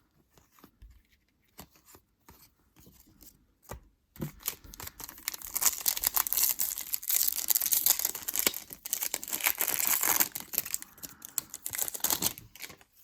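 Foil wrapper of a trading-card hobby pack being torn open and crinkled: a dense crackling that starts about four seconds in and runs until near the end, after a few light clicks.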